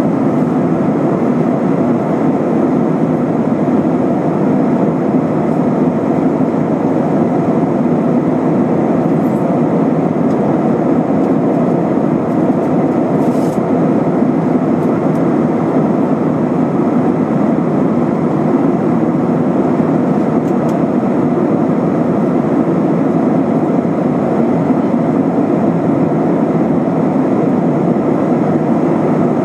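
Steady cabin noise of an Airbus A320-232 in flight: its IAE V2500 jet engines and the airflow over the fuselage make an even, deep rushing sound that does not change.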